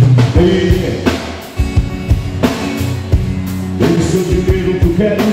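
Live band music: a man singing over an acoustic guitar and a drum kit keeping a steady beat.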